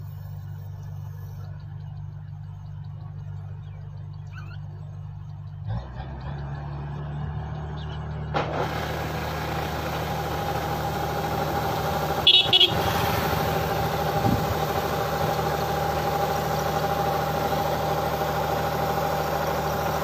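Combine harvester running steadily while it unloads rice grain through its spout into a tractor trolley, a low engine hum that grows louder, with a rushing mechanical noise joining about eight seconds in. Two short loud knocks a little past the middle.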